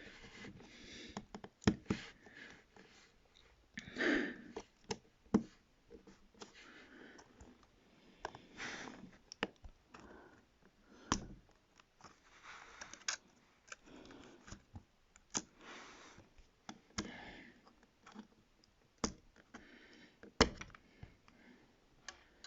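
Irregular small clicks and taps of hands and a tool on a tablet's plastic and metal parts as the screen's connector is worked loose, with soft handling noise between the clicks.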